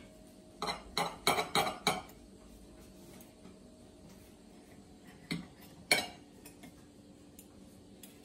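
Metal knife and fork clinking and scraping on a plate as a pancake stack is cut: a quick run of about six clinks in the first two seconds, then two more around six seconds in, the last one the loudest.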